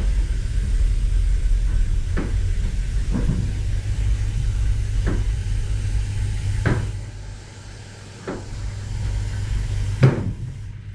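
Commercial kitchen noise: a steady low rumble that eases off about seven seconds in, with irregular sharp knocks of kitchen work every second or two, the loudest near the end.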